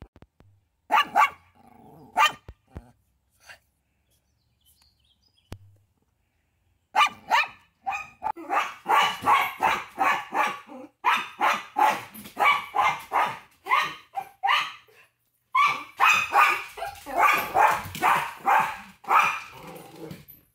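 Pomeranian barking to guard its territory: a few barks about a second in, a pause of several seconds, then a long run of rapid barks, about three a second, with a short break near the end.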